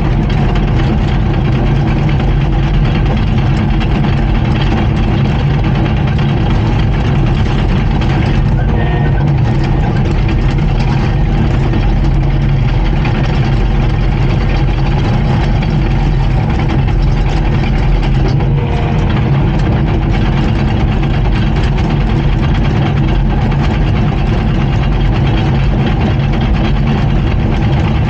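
Komatsu D39PX bulldozer's diesel engine running steadily, a loud, even engine drone with no change in speed.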